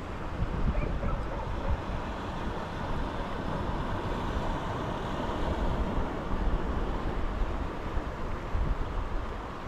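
Wind buffeting the microphone in gusts, with the steady wash of sea surf on a rocky shore behind it.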